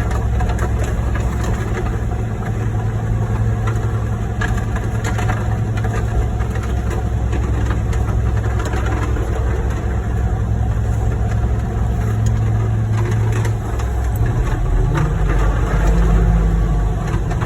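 Heavy diesel truck engines of a concrete pump truck and ready-mix mixer running steadily under load while concrete is pumped. The engine note shifts higher about fourteen seconds in.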